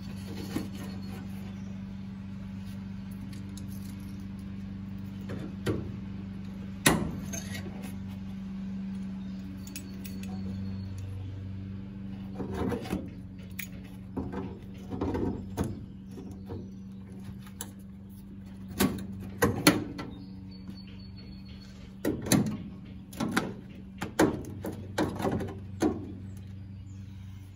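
Scattered metallic clicks and light knocks as a steel patch panel is handled, fitted against the wheel well and clamped with locking pliers, thickest in the second half, over a steady low hum.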